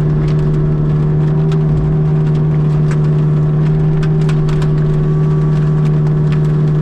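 Mini excavator running a brush-mulching head, heard from inside the cab: a steady engine and hydraulic drone, with scattered sharp ticks on top.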